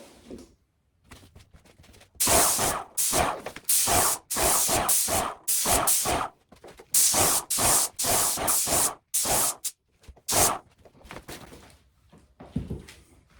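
Graco Magnum X5 airless paint sprayer gun hissing in a dozen or so short trigger-pull bursts, about half a second each, as paint is sprayed onto a door.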